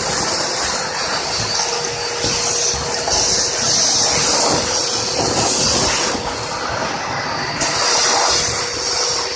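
Two-motor industrial vacuum cleaner running with a steady hum and a loud hiss of rushing air that swells and drops several times, over an irregular low rattle.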